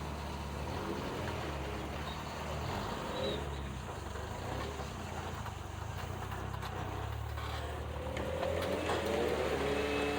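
Off-road vehicle's engine running at low revs, rising in pitch several times near the end as the revs climb.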